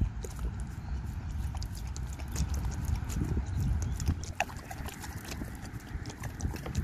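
A dog lapping water from the sports cap of a plastic water bottle, its tongue making quick, repeated wet clicks, over a low rumble.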